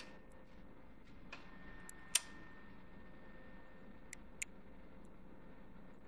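A few sharp metallic clicks and clinks of pliers handling a metal sprocket on a steel workbench, the loudest about two seconds in and two quick ones around four seconds. A faint steady background hum runs underneath.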